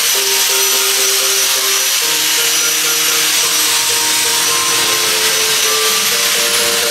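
Background music with slowly changing held notes over a steady, loud hiss.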